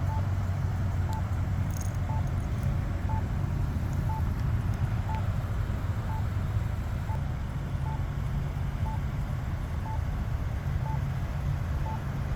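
Campbell accessible pedestrian signal push button sounding its locator tone: a short beep about once a second while the crossing shows wait. Steady low traffic rumble underneath.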